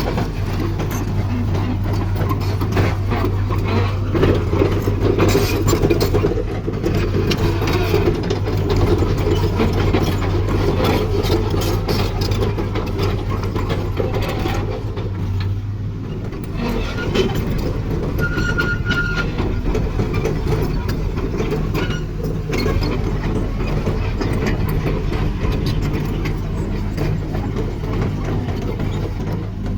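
Hitachi UH25-3 hydraulic excavator working: its diesel engine runs steadily under continuous metallic clatter and clanking from the machine, with the engine note dropping briefly about halfway through.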